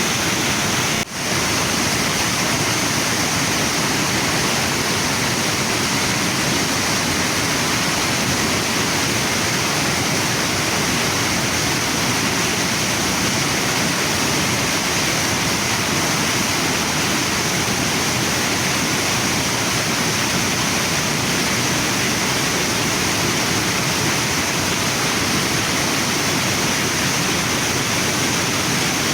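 Waterfall and river water rushing in a steady, dense wash of noise, with a brief drop in level about a second in.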